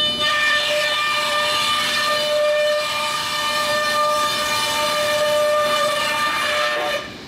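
Biesse EKO vertical CNC machine's router spindle running with a steady high-pitched whine and a rushing noise as it machines a 9 mm plywood panel. The sound drops off suddenly near the end.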